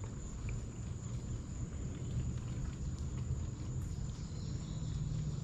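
Outdoor creek ambience: a steady low rumble with a thin, steady high-pitched insect drone over it.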